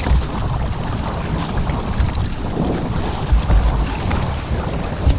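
Wind buffeting the microphone over choppy water, with the splashes of sea-kayak paddle strokes and water slapping against the hull.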